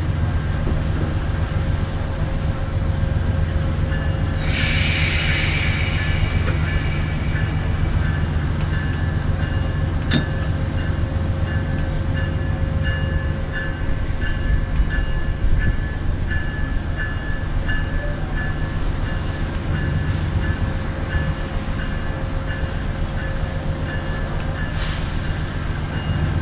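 VIA Rail passenger train standing at the platform, its diesel locomotive idling with a steady low rumble. A brief hiss comes about four and a half seconds in and again near the end, with a single sharp click in between.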